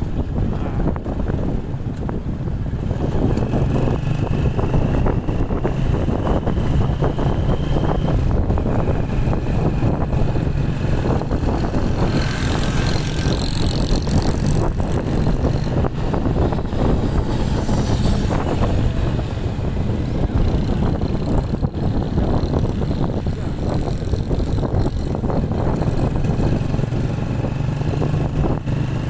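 Engine of a moving vehicle running steadily at road speed, a constant low drone with a faint whine above it, and wind rushing over the microphone. A louder hiss swells for several seconds about twelve seconds in.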